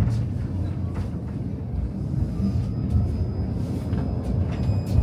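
Tram running along its rails: a steady low rumble from the wheels and running gear, with a few short clicks and knocks from the track.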